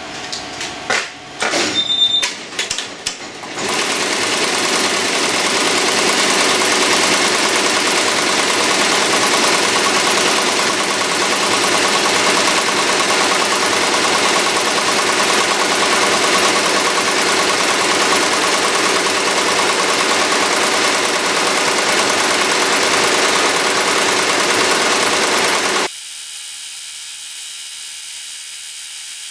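Multi-needle commercial embroidery machine starting up with a few clicks and knocks, then, about four seconds in, settling into steady rapid stitching, a dense mechanical rattle. Near the end the sound cuts abruptly to a quieter, thinner high hiss.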